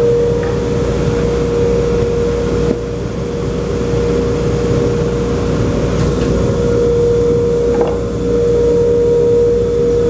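A woodshop machine's electric motor running steadily, with a constant hum over a rushing noise.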